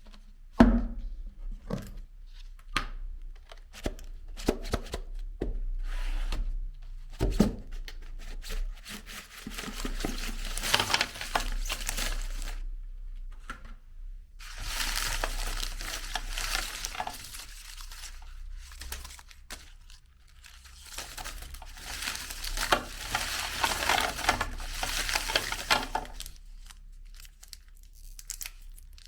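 Candy wrappers crinkling and tearing in two long stretches, with a few sharp knocks before them.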